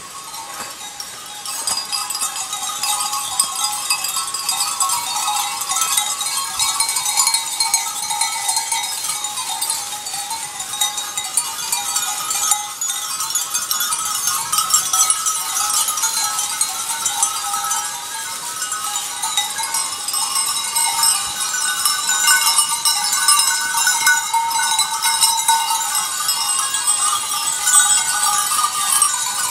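Many bells worn by a passing herd of goats ringing together in a steady chime-like jangle.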